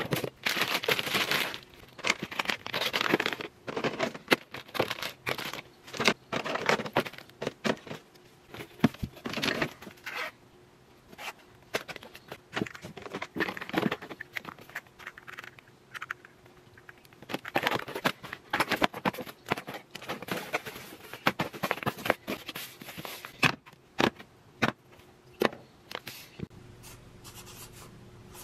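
Plastic toiletry bottles and packaging knocking together and crinkling as they are packed by hand into a cardboard box, in irregular bursts with short lulls.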